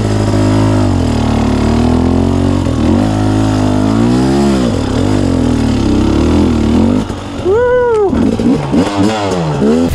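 KTM 250 EXC TPI's fuel-injected two-stroke single-cylinder engine pulling the bike along a trail, its revs rising and falling with the throttle. About two-thirds through it drops off briefly, then blips sharply up and back down, followed by a few quick throttle blips near the end.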